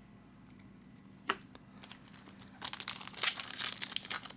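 A single sharp click about a second in, then from a little past halfway a dense crinkling of a hockey card pack wrapper being handled and torn open.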